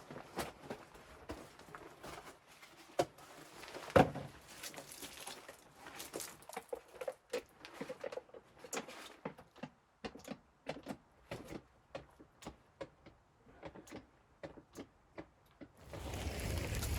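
A series of sharp knocks and clicks, the loudest about three and four seconds in and a quick run of lighter ones later, then near the end a sudden steady rush of wind on the microphone.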